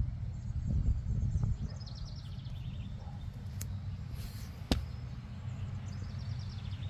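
Outdoor ambience: a steady low rumble on the microphone, with a small bird twice singing a quick series of high notes that step down in pitch. A single sharp click comes just under five seconds in.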